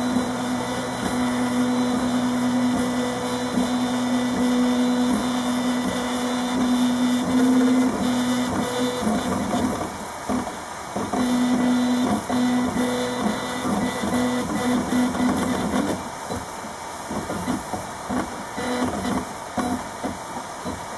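RepRap Mendel 3D printer's stepper motors whining at a steady pitch as the print head runs long moves, with a short break about halfway. In the last few seconds the steady tone gives way to short, choppy bursts of movement.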